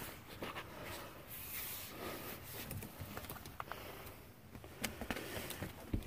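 Someone clambering across attic joists and loose boards: shuffling and rustling with scattered light knocks and clicks.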